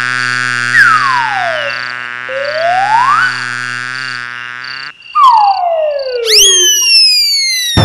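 Cartoon slide-whistle sound effects: a whistle gliding up, down and up again, then, after a short break, a falling glide and a long high descending whistle near the end. Beneath them a steady buzzing drone runs until about five seconds in, with a high chirp pulsing on and off.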